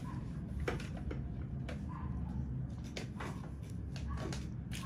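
A low, steady hum with scattered faint clicks and light knocks, a few each second.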